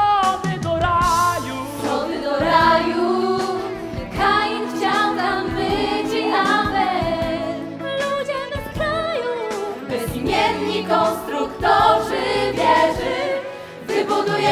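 Musical-theatre song: several voices singing together over instrumental accompaniment.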